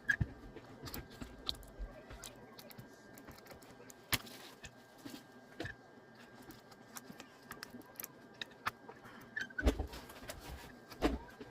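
Irregular small clicks, taps and scrapes of hand tools working on a smartphone's back glass, with a couple of louder knocks near the end, over a faint steady high tone.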